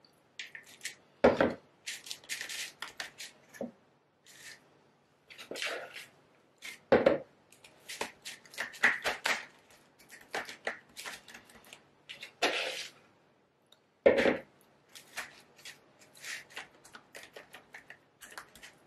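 A metal spoon scraping and clicking against a pie dish as soft pie-base dough is pressed and spread into it, in short irregular strokes, with a few louder knocks along the way.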